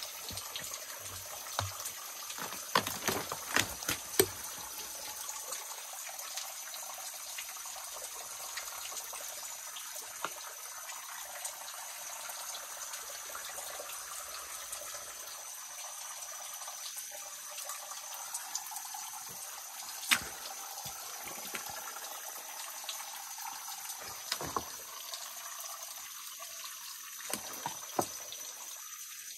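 Water trickling and dripping steadily off a limestone ledge into a shallow creek pool. Scattered sharp clicks and knocks come in a cluster in the first few seconds, once about two-thirds of the way through, and several times near the end.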